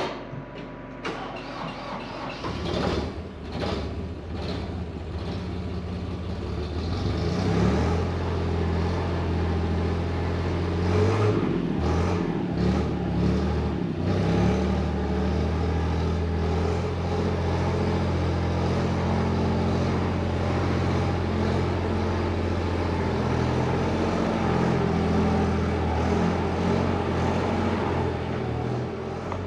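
Farm machine engine starting up about two and a half seconds in after a few clanks, then running steadily at a low, even note, a little louder from about eight seconds on.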